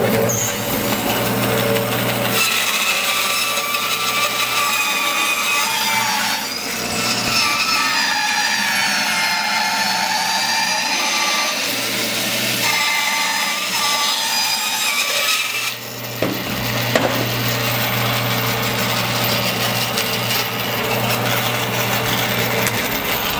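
Rikon 14-inch bandsaw running, then crosscutting a disc off a log of wet Brazilian pepper tree from about two seconds in until about sixteen seconds in, with a whine that wavers in pitch through the cut. The saw then runs free again with a steady hum.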